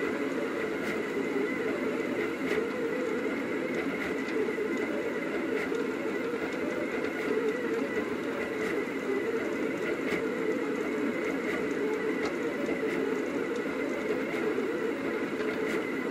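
Rostock delta 3D printer running mid-print: a steady whirring hum with faint ticks scattered through it.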